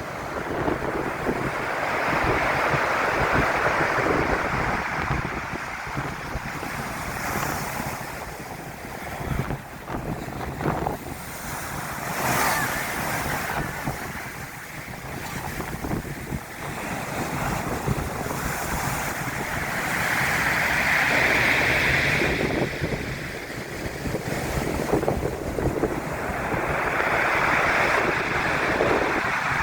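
Storm waves breaking and surging on Brighton's shingle beach, with strong wind buffeting the microphone. The surf swells and falls in long surges several seconds apart, loudest about twenty seconds in.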